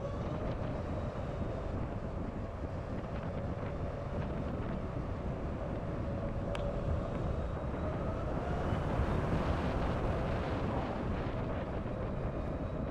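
Riding on a LiveWire S2 Del Mar electric motorcycle: steady wind rush and tyre noise on the road, with the faint, steady whine of the electric drivetrain. A second whine rises in pitch about eight seconds in, and there is a single sharp click in the middle.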